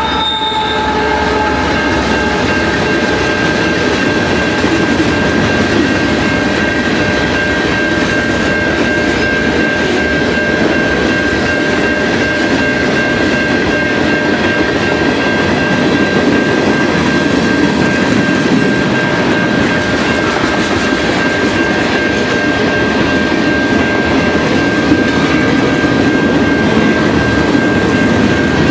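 CN freight train passing at speed. The locomotive horn's chord cuts off about a second in, then comes the steady rumble and clatter of freight cars rolling by, with a thin steady high whine over it.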